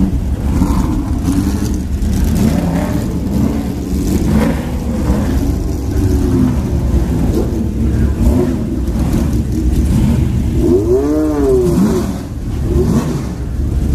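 Classic racing car engines running loudly, with one engine revved in a quick rise and fall of pitch about eleven seconds in.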